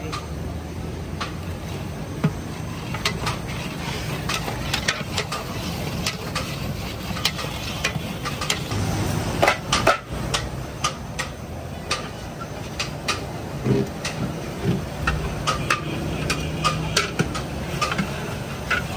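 Metal utensils clinking and knocking irregularly against cookware, a couple of louder knocks near the middle, over a steady low hum.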